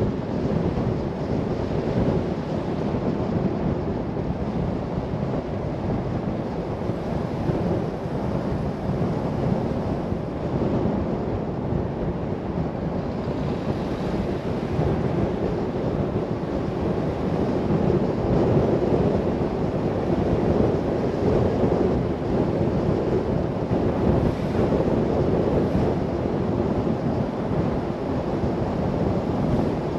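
Steady rush of road and wind noise from a car driving along, an even roar with no distinct engine note or events.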